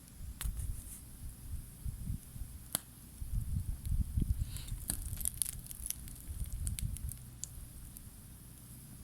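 Wood campfire crackling with scattered sharp pops, most of them clustered around the middle, over an uneven low rumble.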